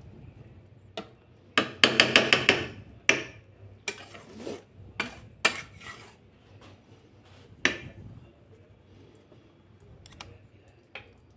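Metal spatula stirring and knocking against an aluminium kadhai of paneer chilli gravy. A quick run of clinks comes about two seconds in, then single knocks every second or so.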